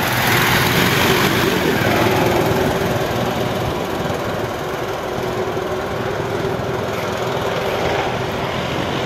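Hovercraft engine and caged air propeller running with a steady drone. It is loudest as the craft passes close and slowly fades as it moves away.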